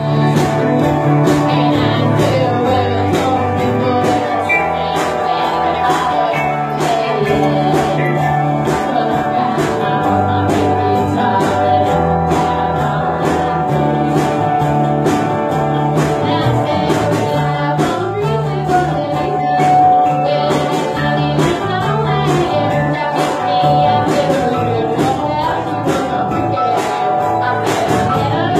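Live band playing amplified guitars over a steady beat.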